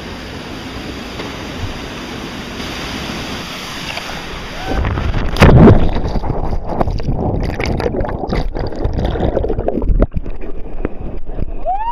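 Steady rush of river water and wind, then about five and a half seconds in a loud splash of a person plunging into the water, followed by churning, sloshing water noise with scattered knocks.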